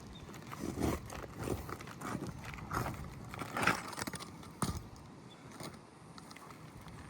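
Asphalt roof shingles being worked loose, with irregular scraping and crackling strokes and a sharp knock about four and a half seconds in, then quieter toward the end.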